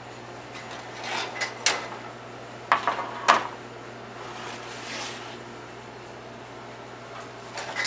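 Metal sheet pan knocking and scraping as it is slid onto the stone deck of a pizza oven, a handful of sharp clatters with the loudest about three seconds in. A steady low hum runs underneath.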